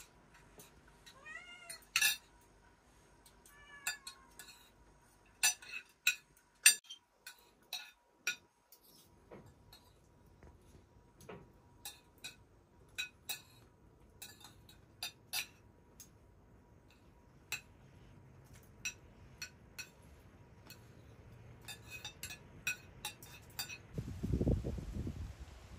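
A cat meowing two or three times in the first few seconds, amid scattered sharp clicks and clinks. A brief low rumble comes near the end.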